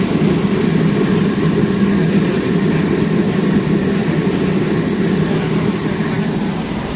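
Steady, loud machinery running, a constant low hum with a rushing noise over it, unchanging throughout.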